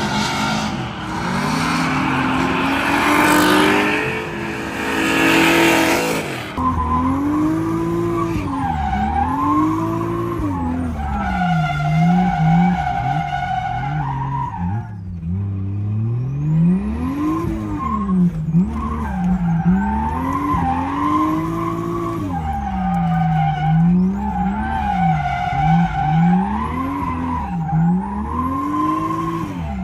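A drift car sliding with its tires squealing while the engine revs rise and fall over and over, roughly every second or two. The first few seconds are mostly a loud hiss of skidding tires, which changes abruptly about six seconds in.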